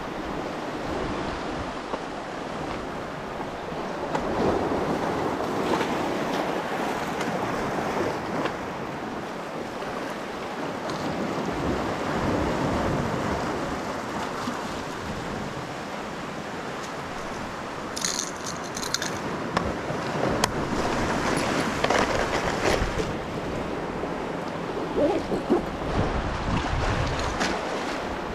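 Sea surf surging and washing over shoreline rocks, swelling and easing every few seconds, with wind buffeting the microphone. A brief cluster of small clicks comes about two-thirds of the way in.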